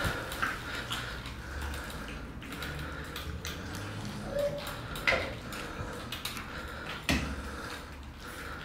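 Several cats eating wet food from stainless steel bowls on wire stands: soft chewing and licking, with a few sharp clinks of a bowl, the loudest about five seconds and seven seconds in.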